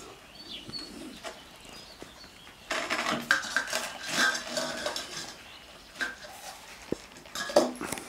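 Hovawart puppies eating from steel bowls, the bowls clinking and scraping on the tiles, busiest from about three seconds in, with birds chirping in the background.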